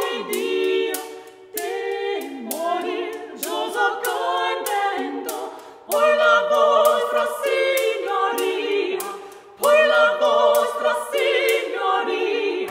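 Women's voices singing a 15th-century courtly song unaccompanied, in close harmony, in phrases broken by short breaths.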